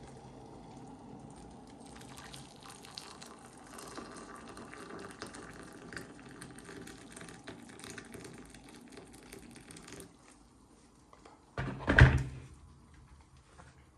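Freshly boiled water poured from an electric kettle into a cup for tea, a steady pour for about ten seconds that stops abruptly. About two seconds later comes a single loud thump.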